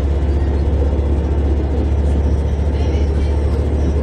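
Syntus LINT diesel railcar under way, heard from inside the driver's cab: a steady low engine drone with rail rolling noise.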